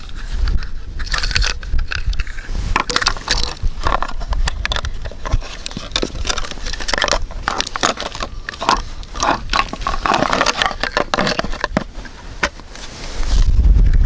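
Irregular scraping and crackling clicks of fishing gear being handled on the ice while a tip-up is set, with low wind rumble on the microphone near the end.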